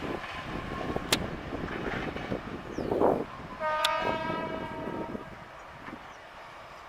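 Train running with a steady rumble and a sharp click about a second in. A little past halfway, a locomotive horn gives one short blast. The running sound dies down near the end.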